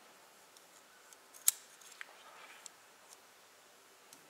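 Light metallic clicks of a new piston ring and a ring expander tool as the ring is opened and fitted onto a diesel truck piston: one sharp click about a second and a half in, a smaller one half a second later, and faint ticks around them.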